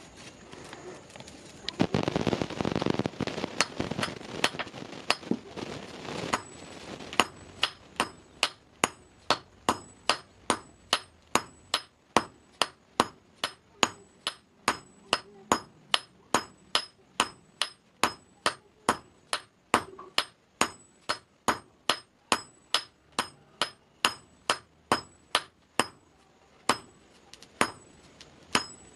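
Hand hammer striking a red-hot iron bar on a block anvil, a steady run of blows about two a second, each with a bright metallic ring, as the bar is forged. Before the hammering starts, a few seconds of louder rushing noise.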